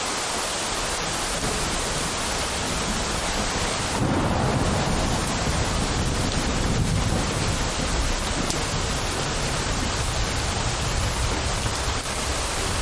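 Steady rain falling, with a low rumble of thunder that comes in suddenly about four seconds in and rolls on for several seconds before easing.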